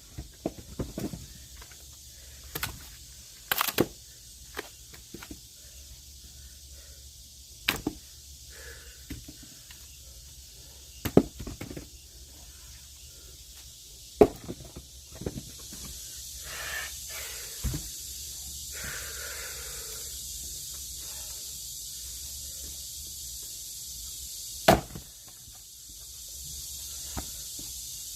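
Sharp knocks of an axe striking wood in log splitting, about half a dozen at irregular intervals with lighter clicks between them, and a steady hiss rising about halfway through.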